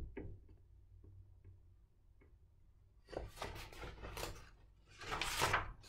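Paper pages of a paperback picture book rustling as the book is handled and a page turned, starting about three seconds in, in two short spells.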